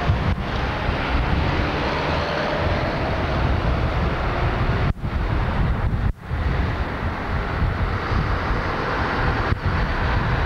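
Steady outdoor rumble of wind on a camcorder microphone, mixed with street traffic passing. The sound cuts out briefly twice around the middle.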